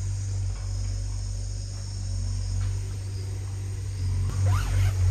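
Autumn crickets chirping in a steady high chorus, over a steady low rumble, with a few light rustles near the end.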